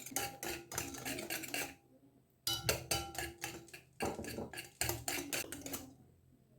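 A utensil beating eggs, sugar and oil by hand in a bowl, clattering rapidly against the bowl at about five strokes a second, with a short pause about two seconds in and another near the end.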